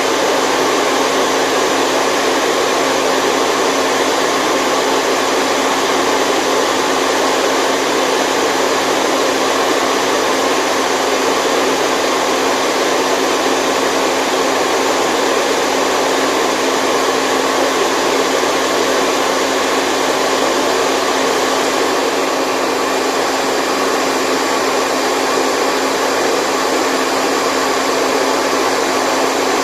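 Steady, unchanging rushing white noise with a faint steady hum running through it.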